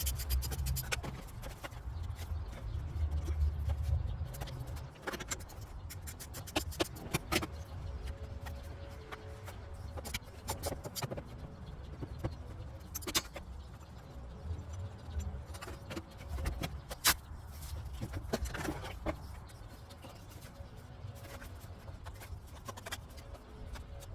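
Scattered clicks and clanks of hand tools and parts being handled while engine components are taken apart, over a low rumble; one sharp clank about 17 seconds in is the loudest.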